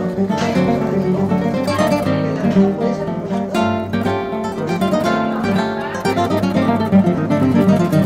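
Background music: flamenco guitar.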